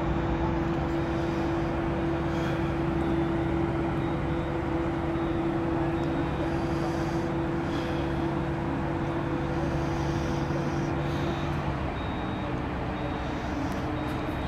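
Heavy diesel plant, the mobile cranes and heavy-haulage truck, running steadily: a constant engine drone with a steady hum whose main tones drop away about twelve seconds in.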